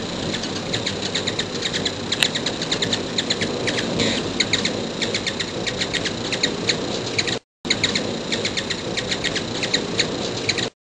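Hummingbirds calling close up: rapid, squeaky high chip notes, several a second, over the steady hum of their wings. The sound breaks off briefly about two-thirds of the way through.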